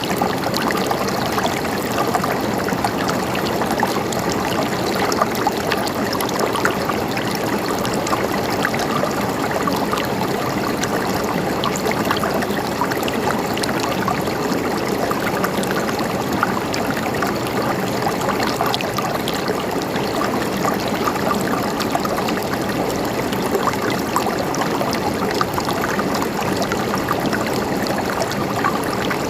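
River water flowing and gurgling steadily over stones, a continuous even rush with small splashes throughout.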